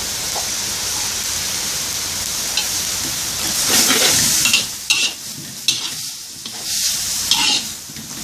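Bean sprouts, minced pork and kale stir-frying in a hot wok, with a steady sizzle. From about three and a half seconds in, a metal spatula scrapes and tosses the food against the wok in a series of quick strokes.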